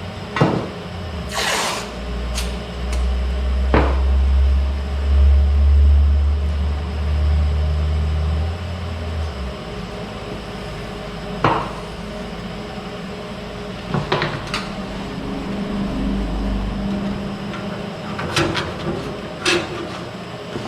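Scattered knocks and clicks of tools and parts being handled, with a low rumble through the first half that returns briefly near the end.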